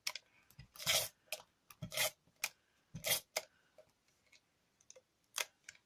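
Handheld adhesive applicator gun being worked and handled: irregular clicks and short scraping rubs, about a dozen, as it sticks and fails to dispense after long disuse.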